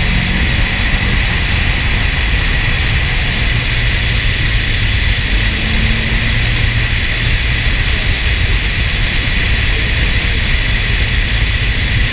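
Steady, loud wind rush and road noise from a car driving at speed, picked up by a camera mounted at the hood.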